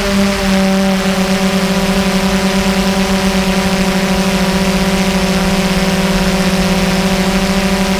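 DJI Phantom 2 quadcopter's motors and propellers humming in flight: a steady, loud buzzing tone with several higher tones above it and a fast, even pulsing wobble.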